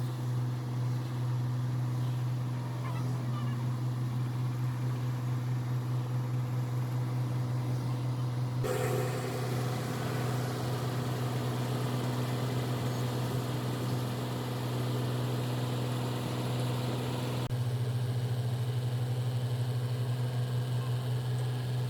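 Site machinery engine running steadily with a low, slightly pulsing drone. The sound changes abruptly about nine seconds in and again near eighteen seconds in.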